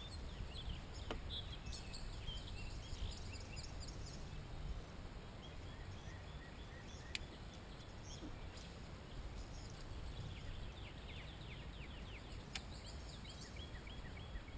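Wild songbirds singing in many quick, repeated chirps over a steady low rumble, with a few sharp clicks.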